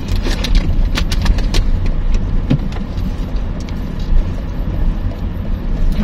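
Inside a sedan's cabin: steady low rumble of the engine and tyres on a rough concrete road as the car descends a steep grade. Sharp clicks and knocks from bumps and rattles come thickest in the first couple of seconds.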